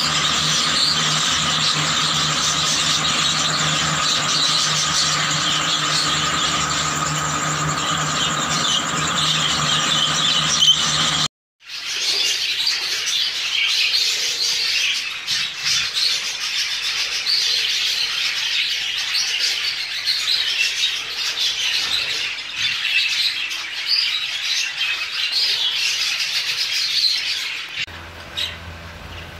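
Budgerigars chattering and warbling: a dense, high-pitched twittering that goes on without a break. It cuts off for a moment about eleven seconds in, then goes on again, and drops in level near the end.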